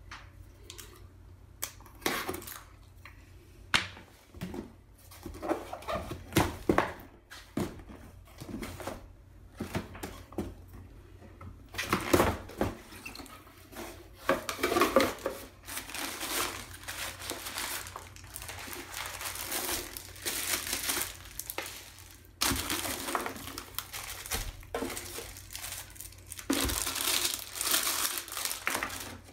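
Cardboard box being opened, with scattered clicks and scrapes as a box cutter and the flaps are worked. From about twelve seconds in, the plastic bags around the contents crinkle steadily as the items are lifted out and set down.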